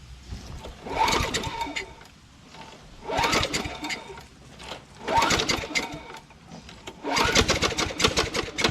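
Tecumseh Vector lawn mower engine being pull-started: four pulls on the recoil starter about two seconds apart, each a second or so of fast cranking that opens with a rising whir. The last pull runs longest.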